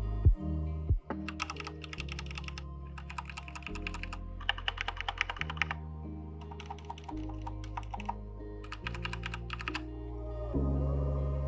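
Redragon Lakshmi mechanical keyboard being typed on in several quick runs of key clicks, about five bursts of about a second each with short pauses between, over background music.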